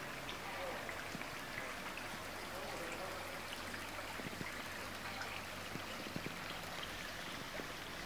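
Steady rushing background noise with a few faint clicks scattered through it.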